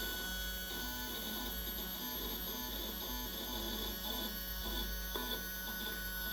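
Sky-Watcher EQ6-R Pro equatorial mount's stepper motors running with a steady high whine and a faint pulse repeating about twice a second. The owner finds the noise unusual.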